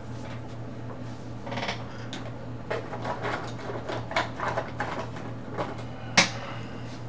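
Coloring supplies being handled and used: a run of small clicks, taps and scratchy strokes, with one sharp click about six seconds in, over a steady low hum.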